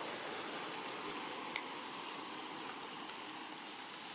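Steady, even hiss of outdoor forest ambience, with one faint click about one and a half seconds in.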